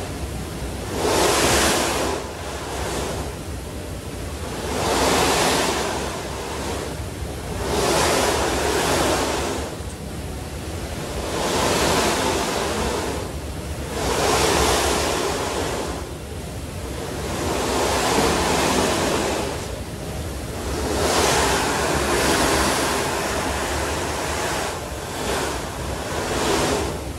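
A snowboard sliding on the moving carpet of an indoor revolving ski slope: a scraping rush that swells about every three to four seconds as the board turns edge to edge, over the steady rumble of the running belt.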